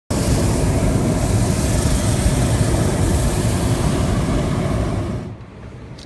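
Hot-air balloon's propane burner firing, a loud steady rushing noise that cuts off about five seconds in.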